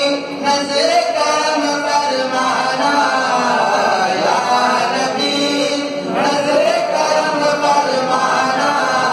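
A male voice singing a naat, an Urdu devotional song, into a microphone, holding long notes that bend and glide in pitch.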